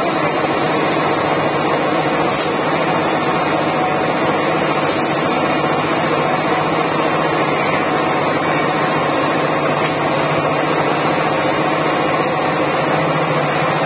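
Steady, loud machinery noise with a constant hum, unchanging throughout.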